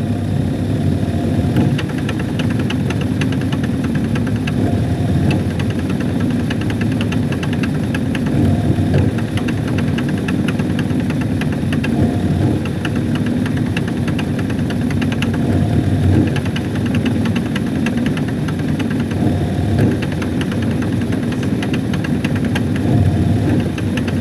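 Hitachi SF-160KJS top-loading washing machine's motor and belt drive running under the tub, a loud steady low rumble with a rapid light ticking over it.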